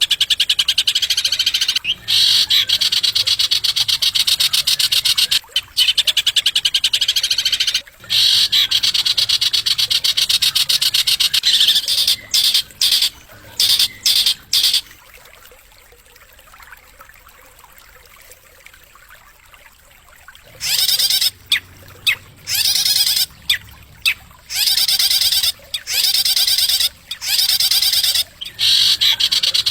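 Songbird singing long, very rapid, shrill trills in bouts of several seconds, with short breaks and a pause of about five seconds halfway through.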